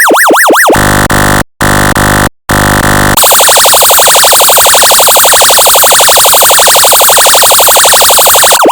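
Synthesized electronic siren tones from a function generator. A fast up-and-down sweeping siren ends within the first second. It gives way to a harsh, buzzy horn-like tone sounded three times with two brief breaks, then from about three seconds in a high, harsh, rapidly pulsing alarm tone, and a sweeping siren comes back at the very end.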